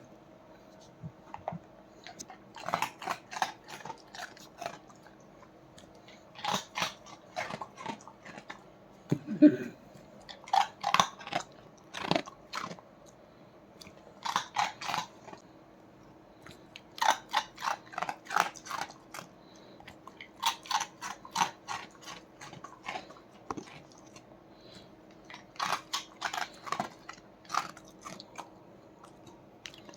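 Labrador dog crunching a dry, crunchy soya-chunk snack. The crunching comes in short bouts of rapid crunches, about eight of them, with pauses of a second or more in between.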